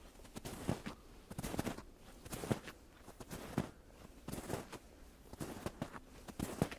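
Footsteps crunching in snow at a steady walking pace, about one step a second.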